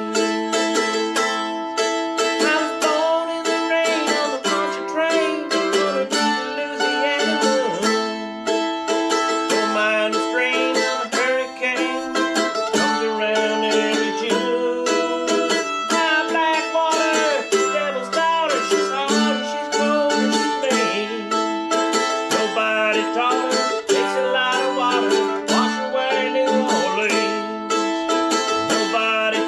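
Mandolin played solo in a fast picked instrumental break: a quick run of single notes over ringing strings, with no voice.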